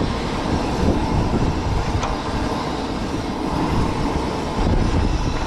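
Strong wind buffeting the microphone: a loud, uneven rumble with no pitch to it.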